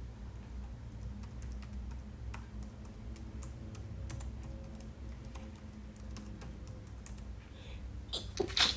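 Irregular tapping of typing on a computer keyboard, several keystrokes a second, broken near the end by a sudden loud sneeze.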